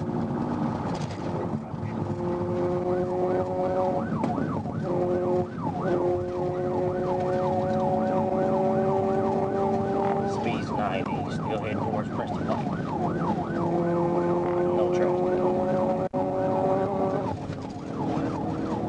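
Police patrol car's electronic siren in a fast yelp: rapid rising-and-falling sweeps, several a second, heard over the car's engine and road noise at high speed. The sound cuts out briefly near the end.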